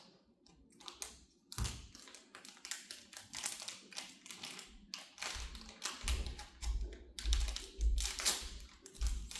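Foil wrapper of a small surprise toy being crinkled and torn open by hand: dense, irregular crackling, with a few low bumps in the second half.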